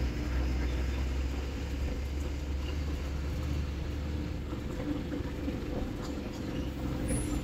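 Diesel bus engine running at low speed with road rumble, heard from inside the driver's cab: a steady low drone with a constant hum.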